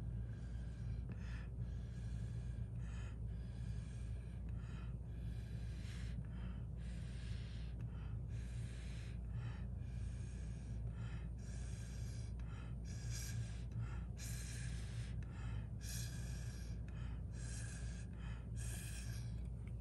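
A person blowing through a drinking straw in short puffs, about one or two a second, with breaths between, pushing wet alcohol ink and gold alloy across the card.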